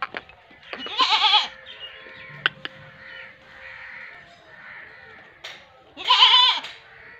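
Goat bleating twice, about five seconds apart, each a short call with a wavering, quavering pitch.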